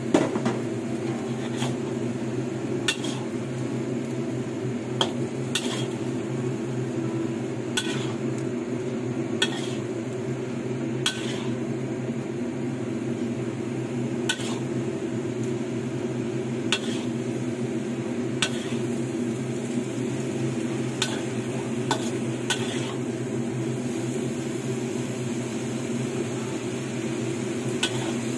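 A cooking utensil knocking and scraping against a pan while noodles are stir-fried and tossed, with a sharp clack every one to three seconds, over a steady low hum.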